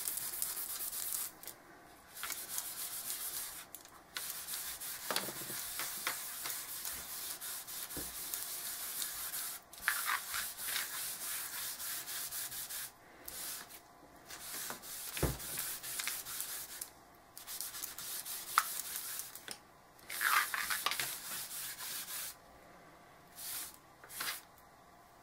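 A baby wipe scrubbing over Gelato crayon colour on a chipboard board, blending it: a hissing rubbing in long strokes that stops and starts several times and thins out near the end. A few soft knocks come in between.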